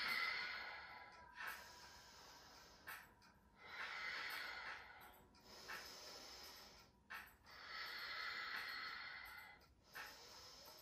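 A woman's slow ujjayi breathing: long, hissing breaths in and out through a narrowed throat, each a second or two long, about three full breaths in a row.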